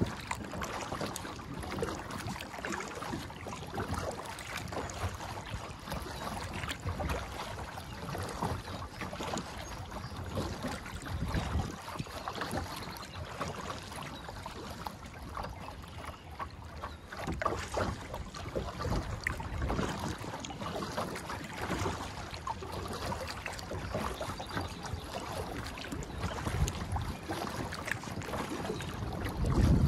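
Kayak being paddled on choppy water: irregular splashes of the paddle and water slapping against the hull, with wind buffeting the microphone in low rumbling gusts, strongest near the end.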